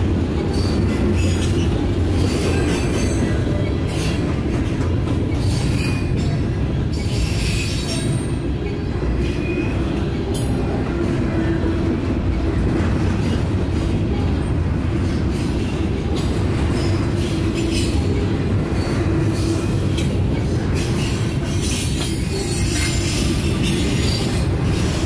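Double-stack intermodal freight cars of a Canadian National train rolling steadily past: a continuous rumble of steel wheels on rail.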